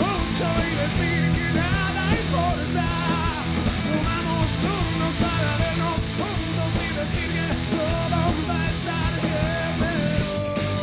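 Rock band playing live and loud, with drums and cymbals, electric bass and a wavering vocal line.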